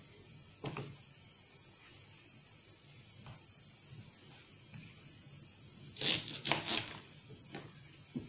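Food-prep handling sounds at a kitchen counter, with green onions on a plastic cutting board: a faint knock about a second in, then a loud burst of three short crackly rustles about six seconds in and a couple of light clicks near the end. A steady high-pitched hiss runs underneath.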